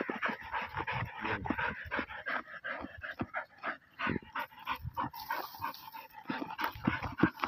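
A dog panting and snuffling hard with its muzzle pushed into a burrow, in a rapid run of short, noisy breaths.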